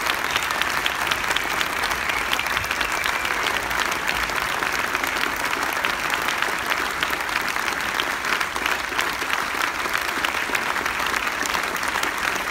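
Theatre audience applauding steadily, many hands clapping at once.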